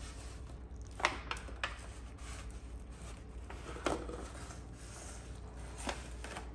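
Hands pulling apart smoked pork in a thin disposable aluminium pan: soft rubbing and tearing of meat, with a few sharp clicks and knocks from the foil pan, the loudest about a second in and near four seconds.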